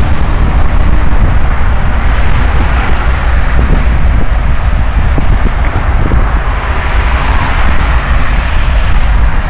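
Road traffic: cars passing on a multi-lane avenue, their tyre and engine noise swelling and fading twice, over a heavy low rumble of wind on the microphone.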